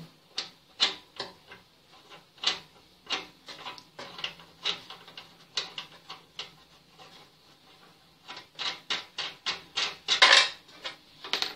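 A steel spanner clinking and scraping against the gas stove's sheet-metal body and fittings as a rusty nut is worked loose, in irregular sharp clicks. They come sparsely in the middle and bunch into a quick run near the end, with the loudest clatter just before the end.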